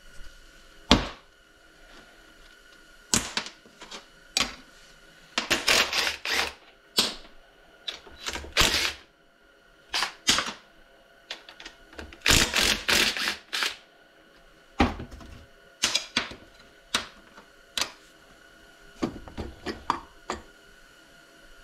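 A cordless DeWalt power driver run in short bursts, backing out fasteners to take apart the Pionjar breaker's housing. Between the bursts come single sharp clicks and clinks of tools and parts set down on a metal workbench.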